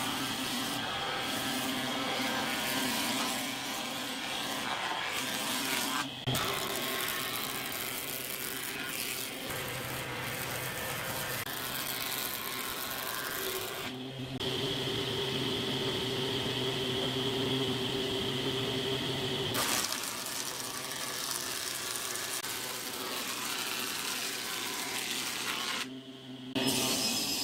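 Nisino combination jointer-planer running steadily, its cutter head humming with the hiss of planing as wooden pallet boards are fed over and through it. The sound jumps abruptly several times between passes.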